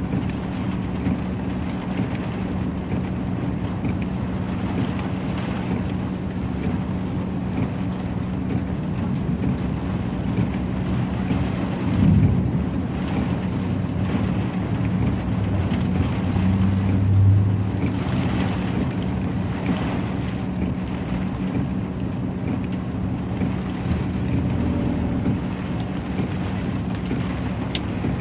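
Heavy rain and hail falling as a steady wash of noise with faint scattered clicks, over a steady low hum. A louder low rumble swells up about twelve seconds in and again around seventeen seconds.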